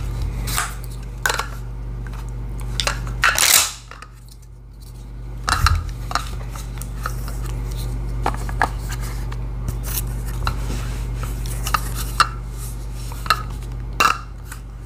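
Scattered metallic clicks and rattles of a Mossberg 500 pump-action shotgun being handled, with one longer, louder scrape about three and a half seconds in, over a steady low hum.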